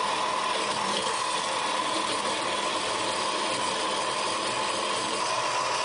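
Bandsaw running steadily while its blade cuts lengthwise through a piece of metal pipe, a constant sawing noise with a strong steady ring at one pitch. The blade is one the owner believes is bad, pulling the cut to the right.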